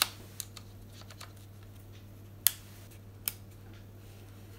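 Clicks and small knocks of a Canon 50mm f/1.8 STM lens and macro extension tubes being twisted off and handled at the camera's bayonet mount: a few sharp clicks, the loudest right at the start and about two and a half seconds in.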